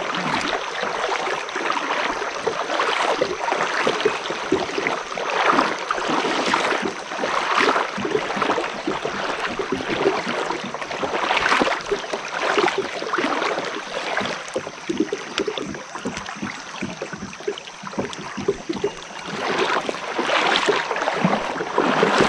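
Close, continuous rush of river water, rippling and splashing unevenly with many small irregular surges.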